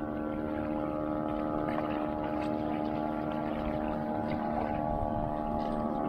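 A boat engine running at a steady speed: an even, unchanging drone.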